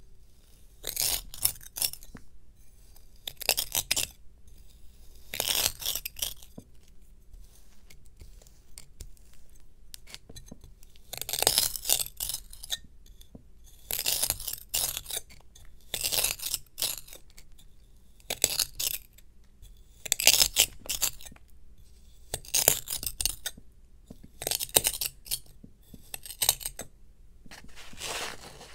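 A knife slicing through kinetic sand heaped on an upturned glass. Each cut is a crisp crunch, with the blade scraping and clinking on the glass. About a dozen cuts come every second or two, with a pause of a few seconds early on.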